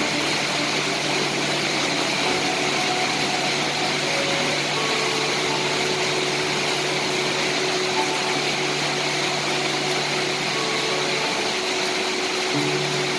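Steady, unbroken rain hiss, with faint held tones at a few pitches and a low hum underneath that drop out briefly near the end.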